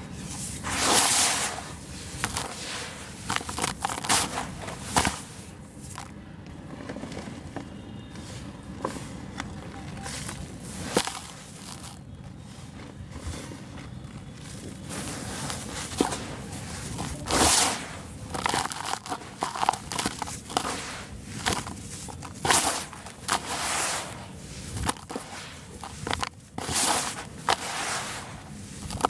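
Hands crunching and crumbling dry sand-and-cement mix: irregular gritty crunches and rustling, with a louder squeeze now and then.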